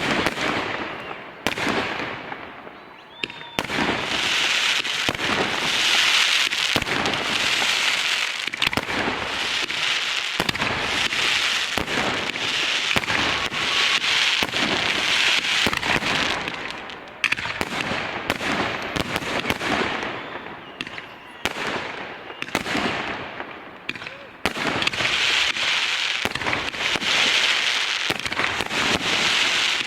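Festive fireworks salute: rapid bangs and dense crackling salvos, broken by a few short lulls before the next volley.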